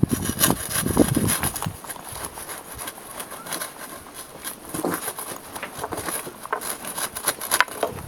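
Metal rod scraping and poking through burning charcoal inside a hollowed tree stump. Lumps of charcoal and charred wood shift with irregular clicks and crackles, heavier knocks in the first second or so.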